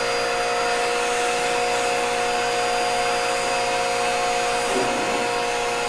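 Vacuum cleaner running steadily, drawing air through the Hurricane Lint Lizard's narrow hose down a clothes dryer's lint-trap slot. The rush of air carries a constant whine.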